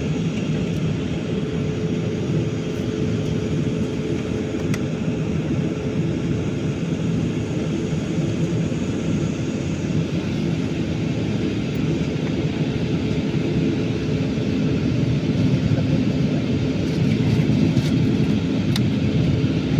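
Cabin noise of an Embraer E195-E2 taxiing: the steady hum of its Pratt & Whitney PW1900G geared turbofan engines at low thrust, heard from inside the cabin, with a couple of steady tones in it. It grows a little louder in the last few seconds.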